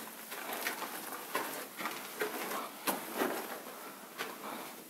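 Footsteps scuffing and crunching on a gritty cave floor: a run of irregular short steps about every half second to a second.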